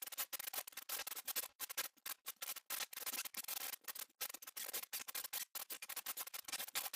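Sparkle sound effect: quiet, dense, irregular crackling and fizzing with no clear tones or beat.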